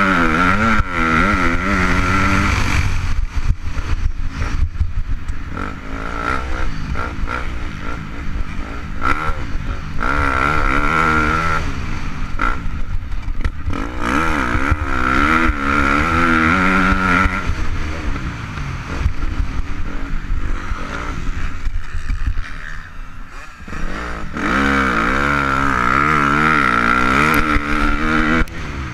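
KTM 250 SX-F four-stroke single-cylinder motocross engine revving hard and backing off again and again, its pitch rising and falling with each throttle and gear change, heard from a helmet-mounted camera. It drops back briefly about three quarters of the way through before revving up again.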